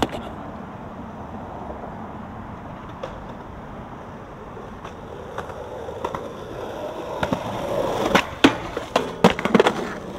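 Skateboard wheels rolling on concrete, the rolling noise growing louder as the board approaches. A string of sharp clacks comes in the last two seconds.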